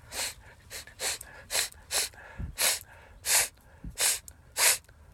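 A man taking short, sharp, noisy breaths, about eight in a row at a steady pace of roughly one every half second or so. He is breathing hard between sneezes, his nose burning, waiting for the next sneeze to come.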